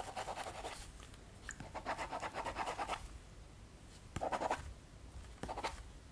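Pen scratching across the paper of a notebook: quick writing strokes in several short bursts with pauses between.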